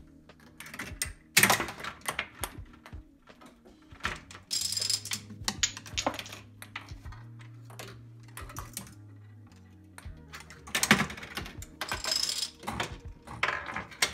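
Homemade chain-reaction machine of K'NEX parts and plastic race-car tracks running: small balls rolling and dropping along the plastic tracks, with an uneven string of clicks, taps and knocks. The loudest knocks come about a second and a half in and again around eleven seconds in.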